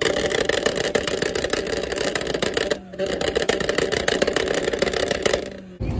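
Honda S2000's four-cylinder engine revved hard and held at high revs with a dense, rapid crackle from the exhaust. It cuts out briefly about three seconds in and again near the end.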